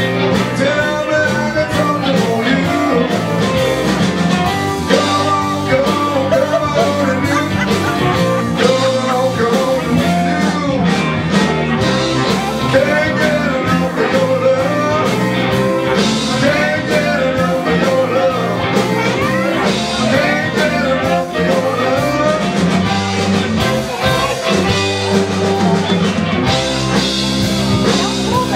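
Live blues-rock band playing loudly and continuously: electric guitar, bass and drums, with a lead line that bends in pitch over the top.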